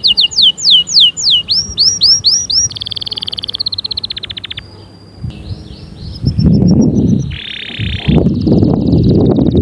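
Canary singing: fast runs of repeated high notes, then rising whistled sweeps and buzzy trills. From about six seconds in, a loud low rattling sound joins under the high trills.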